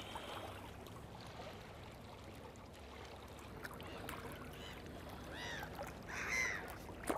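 A few short, harsh bird calls about two-thirds of the way through, over a faint, even wash of water along a rocky shore. A single sharp click comes just before the end.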